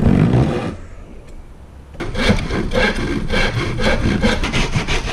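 Hand saw cutting across a wooden board, with a short loud burst at the start and then quick, steady back-and-forth strokes from about two seconds in.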